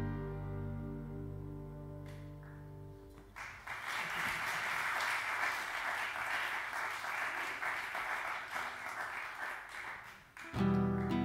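A live band's last chord rings and fades away over the first three seconds, then the audience applauds for about seven seconds. Near the end the next tune starts abruptly with strummed acoustic guitar and low notes underneath.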